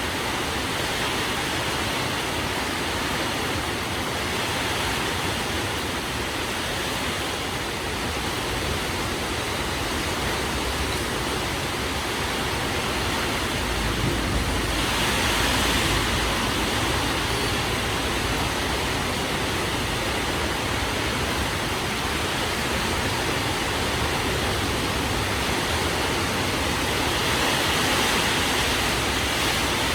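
Heavy rain pouring down in a windstorm, a steady dense hiss that swells louder about halfway through and again near the end.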